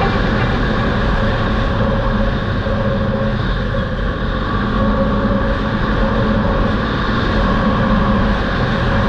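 Polaris Sportsman ATV engine running steadily at riding speed on a gravel road, with tyre and wind noise mixed in.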